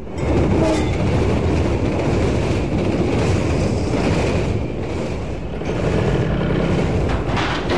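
A train passing, a loud steady rumble that comes in suddenly and holds at an even level.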